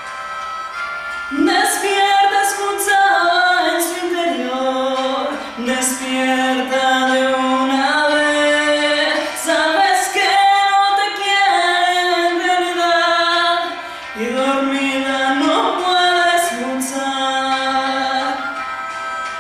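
A woman singing a slow melody with long held notes that slide between pitches, starting about a second and a half in.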